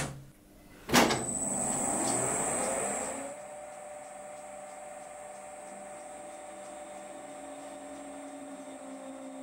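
Colchester metal lathe started up: a knock about a second in, a loud rush of noise for about two seconds as the spindle comes up to speed, then the machine running with a steady hum while a large blacksmith drill in the tailstock feeds into the spinning tube.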